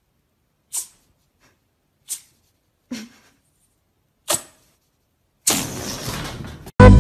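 Four short, sharp clicks, about one every second and a half, then a second or so of rustling scuffle near the end.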